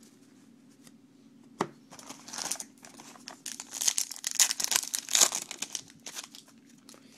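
Baseball card pack wrapper crinkling and being torn open. A sharp click comes about one and a half seconds in, then a run of crinkling that is loudest just past the middle and dies away near the end.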